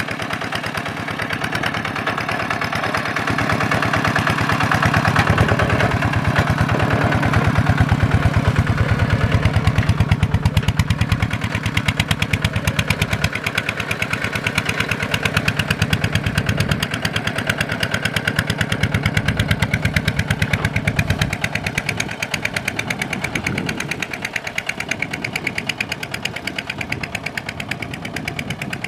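Kubota diesel engine running steadily with a rapid, even beat of firing strokes, swelling a little louder for a few seconds in the first third before settling back.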